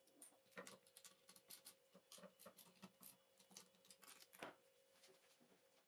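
Faint, irregular clicks and taps of small metal screws and 3D-printed plastic frame parts being handled and fitted by hand, with one louder tap about four and a half seconds in.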